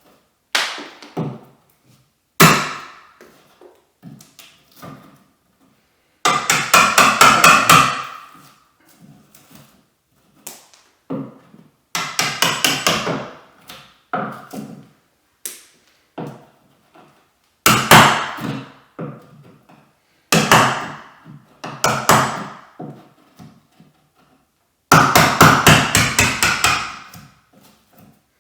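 Hammer driving a wood chisel to cut a hinge mortise: single sharp blows mixed with bursts of quick strikes, several a second.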